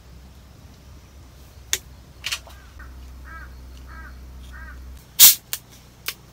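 A crow cawing four times in a row, fairly faint, with several sharp clicks; the loudest click comes about five seconds in.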